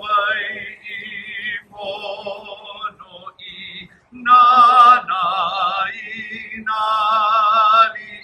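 A voice singing held, sustained notes with strong vibrato, in short phrases separated by brief pauses.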